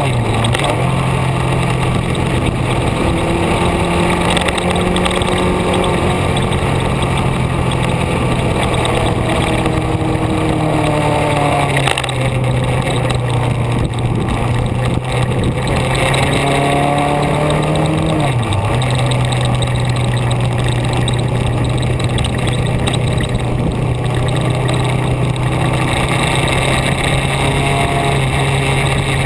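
Vehicle engine running steadily under way, with heavy wind and road noise. The engine note changes about twelve seconds in and dips briefly and recovers near eighteen seconds, as with throttle or gear changes.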